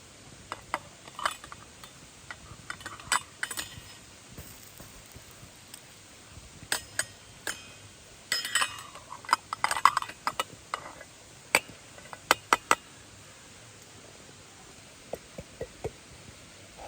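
Irregular clinks and knocks of metal camp cookware and utensils being handled, with a busier run of clattering about halfway through and a few light taps near the end.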